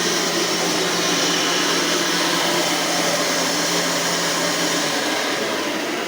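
Hoover 12-amp vacuum cleaner motor running steadily with a low hum; the hum drops out about five seconds in and the sound begins to fade near the end as the motor winds down.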